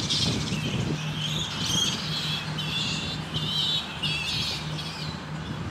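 Shrill, wavering squawking calls from animals roosting in a tree, about two a second, over a steady low hum.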